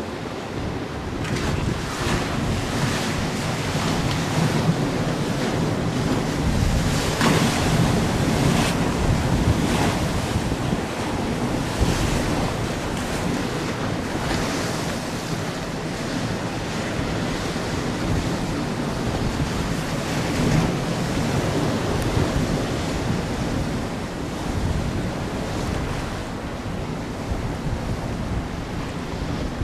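Gusty wind buffeting the microphone over choppy river water, with waves slapping and splashing. The gusts swell through the first half and ease later on.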